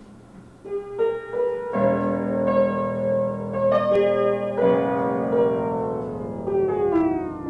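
Keyboard music: held piano-like notes begin just under a second in, fuller chords come in soon after, and through the second half the whole sound slides slowly down in pitch.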